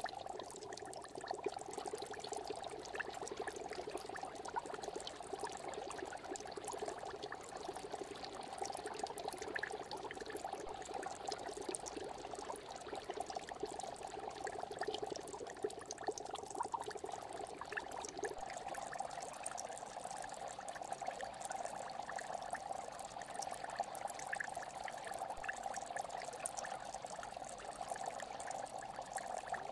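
Aquarium water bubbling steadily, streams of air bubbles rising with many small pops and a running trickle. A lower part of the sound drops out about two-thirds of the way through.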